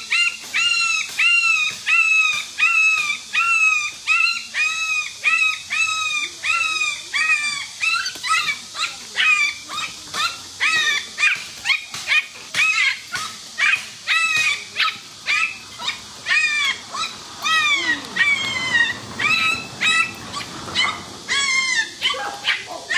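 A puppy yelping in a long run of short, high-pitched cries, about one and a half a second, each rising then falling in pitch, while pinned under a rooster.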